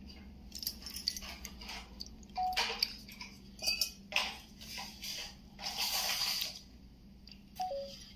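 Water poured in short splashes from a steel tumbler onto turmeric powder in a small bowl, with a few light clinks of metal vessels.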